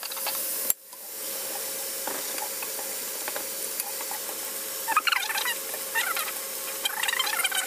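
Chopped onions, garlic, tomato and peppers sautéing in coconut oil in a pot, a steady sizzle. It drops out briefly under a second in. From about five seconds in, high squeaky chirps join it.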